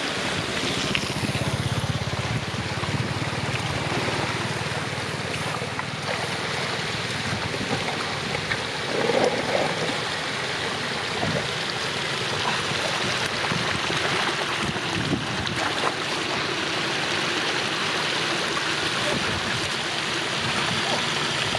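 Steady rush of flowing floodwater with occasional small knocks and splashes.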